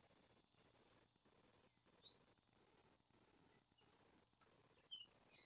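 Near silence: faint room hiss with a few short, high bird chirps, one about two seconds in and two more near the end.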